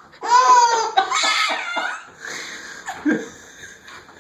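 A baby laughing hard at a sneeze: a loud, high-pitched squealing laugh that breaks into quick chuckles and fades after about two seconds.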